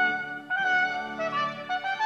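Music led by a brass melody, a trumpet-like line moving through several notes over a held low note.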